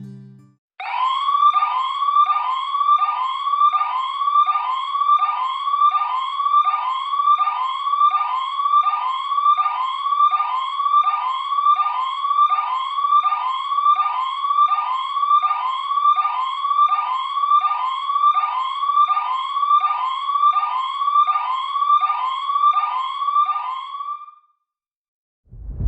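A siren sounding a fast repeating upward sweep, about one and a half rising whoops a second, which stops abruptly near the end.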